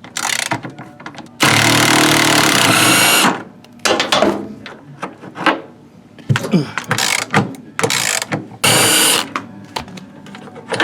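A power drill/driver runs in two bursts, about two seconds long and then under a second, to back out fasteners on the washing machine. Metal clicks, clanks and rattles of tools and parts being handled come between the bursts.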